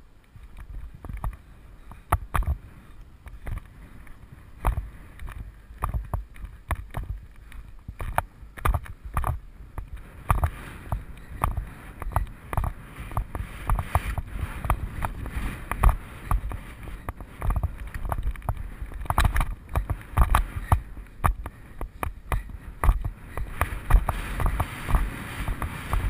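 A horse's hoofbeats on grass: a run of irregular thumps and clicks that grows louder and busier about ten seconds in.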